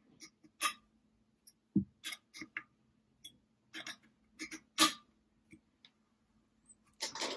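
Allen key turning a screw in the metal top plate of a Proxxon MF70 mill column: a dozen or so short, irregular metallic clicks and ticks as the key is worked and reset in the screw head. A louder burst of handling noise comes near the end.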